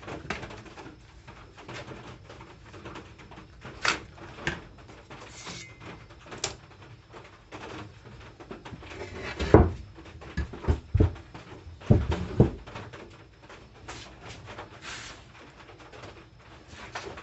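Scattered knocks and bumps of a wooden board and hand tools being handled on a work surface, with a few heavier thumps a little past the middle.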